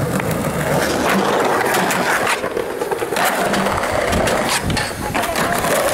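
Skateboard wheels rolling on concrete, with repeated clacks and scrapes of the board on coping and ledges.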